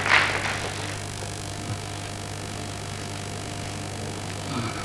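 Steady low hum with faint hiss and no clear event. A short rush of noise fades out in the first second.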